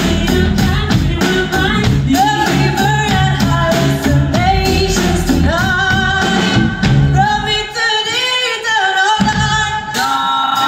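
A live band playing a song: a woman sings lead over electric guitar, keyboards and drums. The bass and drums drop out for a moment about eight seconds in, leaving the voice and the higher instruments.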